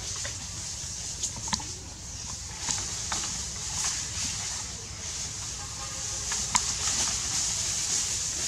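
Bamboo stems and leaves rustling and knocking as young macaques climb through them: several short sharp clicks over a steady high hiss.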